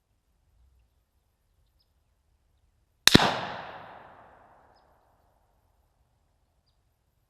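A pound of tannerite exploding target going off: one loud blast, two sharp cracks almost together, with an echo dying away over about a second and a half.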